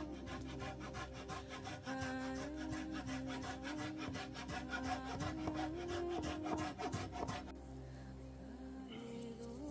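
Wood being sawn by hand in a fast, even rasping rhythm that stops about seven and a half seconds in, under calm background music.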